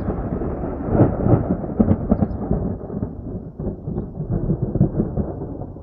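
Loud thunder: a long rolling rumble with a run of sharp cracks about a second to two seconds in and again near five seconds, dying away at the end.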